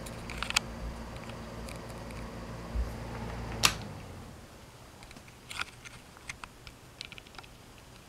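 Box fan's electric motor running with a steady hum, then a sharp click about three and a half seconds in, after which the hum dies away as the fan is switched off and the blades coast down. A few light ticks follow.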